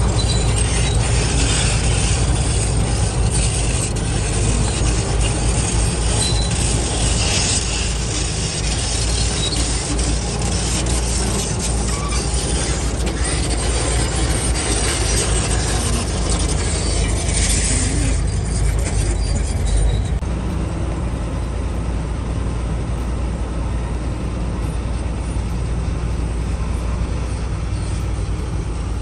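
Komatsu D65 crawler bulldozers at work: diesel engines running under dense clanking and clatter from their steel tracks. About two-thirds of the way through, the clatter falls away and steadier, lower engine noise remains.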